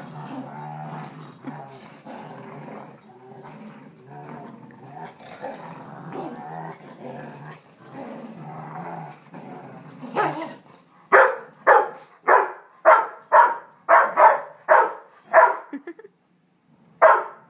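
Dogs growling steadily while tugging on a toy, then a Rottweiler barking in a quick run of about a dozen loud barks, roughly two a second, with one more bark near the end.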